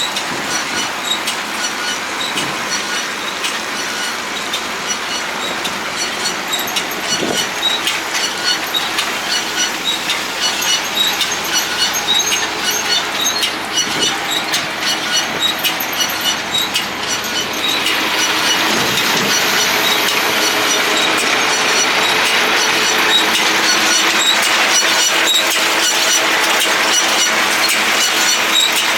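John Deere 568 round baler running, its driveline, chains and rollers clattering with a rapid steady rattle of ticks. It gets louder and fuller about two-thirds of the way through.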